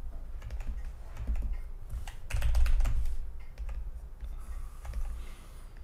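Computer keyboard keys clicking in irregular clusters, busiest about two to three seconds in, as shortcuts are pressed while retouching.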